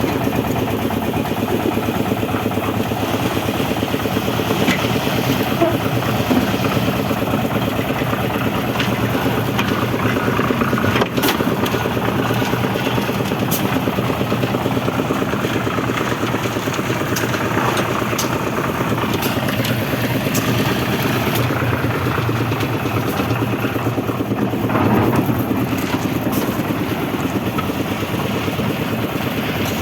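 Engine of a concrete mixer running steadily on a roof-casting site, with a few sharp knocks and clatters over it.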